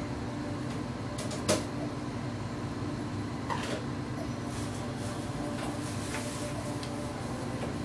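A steady mechanical hum, with a sharp clank about a second and a half in and a lighter knock a couple of seconds later.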